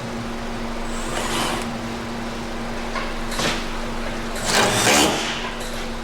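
Car-repair tool work on a front axle: a few short metallic clanks and scrapes, the loudest near the end, over a steady low hum.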